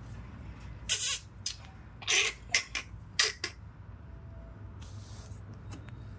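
Sugar glider crabbing: short, harsh, hissing bursts, about seven between one and three and a half seconds in and a faint one later, as a gloved hand reaches into its cage. This is the glider's defensive sound when it feels threatened.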